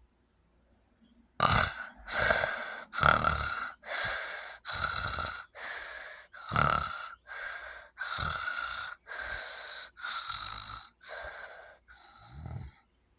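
Loud snoring of a sleeper with sleep apnea: after a short silence, about a dozen noisy snoring breaths follow in quick succession, roughly one a second, the last ones a little weaker.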